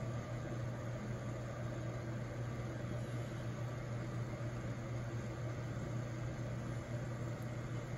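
A motor running steadily, like a fan: an unchanging low hum with an even hiss.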